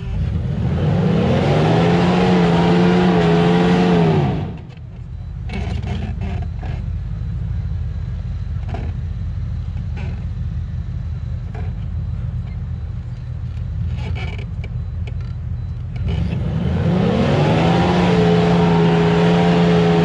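Jeep Grand Cherokee ZJ engine revved hard twice, each time rising in pitch and then held high for about four seconds, with the tyres spinning in the mud as it struggles up the slope. The first rev comes right away and the second about sixteen seconds in. In between the engine runs low with a few knocks.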